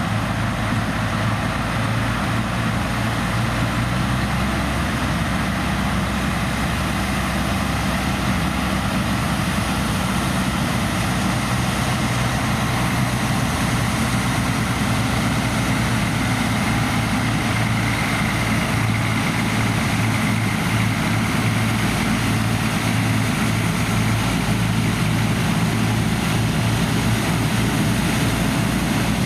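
Large diesel farm machinery running steadily: a constant low engine hum with an even rushing noise over it.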